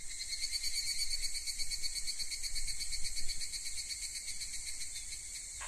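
A steady, high-pitched chorus of chirring insects, with a fine, rapid pulse.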